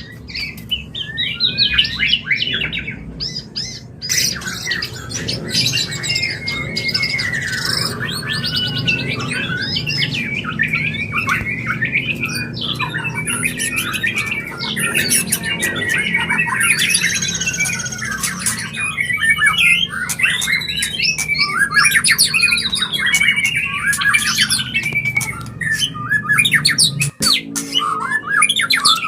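White-rumped shama singing its breeding-condition (mating) song: a continuous, fast-changing stream of whistles, glides, chatters and harsh squawky notes.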